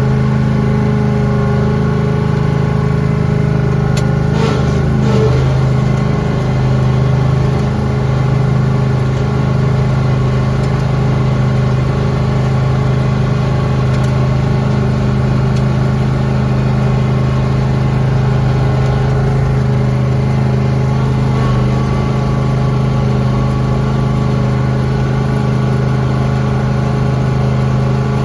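Lawn tractor engine running at a steady speed while plowing snow, with a couple of faint clicks about four to five seconds in.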